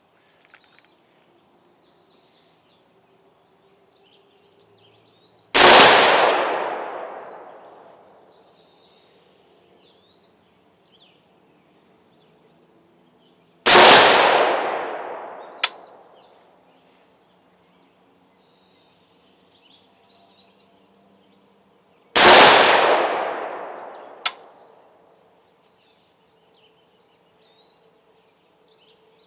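Three single shots from a Head Down HD15 AR-15 rifle firing Federal .223 rounds, about eight seconds apart, each with a long echoing tail. A short sharp click follows about two seconds after the second and third shots.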